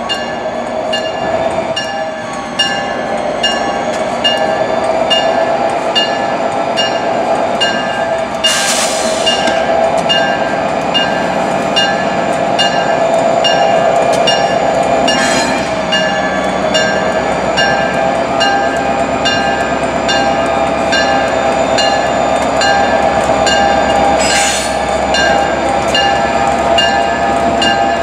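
EMD GP40PH-2 diesel locomotive running as it moves slowly, its bell ringing steadily in an even rhythm over a wavering drone from the engine and wheels. Three short bursts of hiss cut in, about a third of the way in, around the middle, and near the end.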